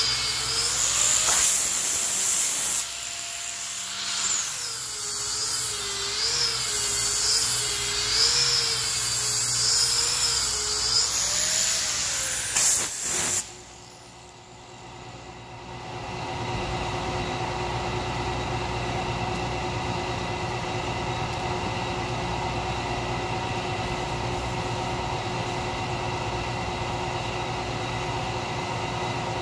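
Electric angle grinder with a sanding disc sanding a pine tabletop, its motor whine wavering in pitch as it is pressed and moved across the wood. It switches off about 13 seconds in, and a steady mechanical hum carries on for the rest.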